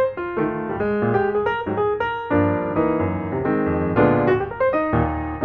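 Background music: a piano tune with chords and a bass line, its notes changing several times a second.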